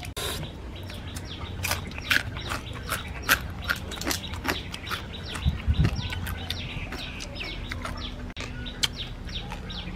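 Chickens and small birds chirping and clucking, with many short high peeps overlapping, over a steady low hum. A dull low thump comes just past the middle.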